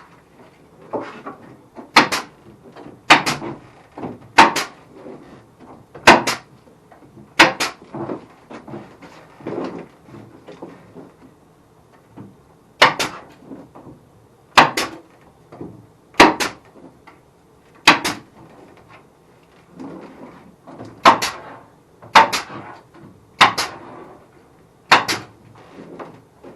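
Brad nailer firing nails into the wooden cupboard frame: a series of sharp cracks a second or two apart, many of them in quick doubles, with a longer pause near the middle and quieter knocks of wood being handled between shots.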